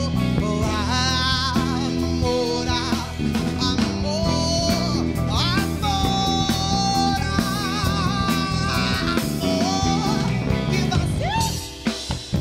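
A live band playing Brazilian pop: a singer holds long, wavering high notes over electric keyboard chords, bass and a drum kit, with cymbal and drum hits near the end.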